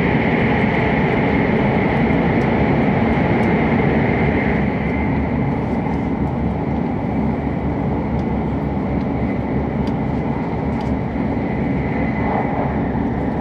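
Steady rushing and rumbling of a JR East E7 series Hokuriku Shinkansen train running, heard from inside the passenger cabin; it grows slightly quieter about four and a half seconds in.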